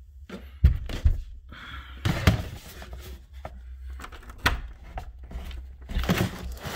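Several dull knocks and thumps, about five, with scraping and rustling between them, as a plastic cat litter box is handled and moved.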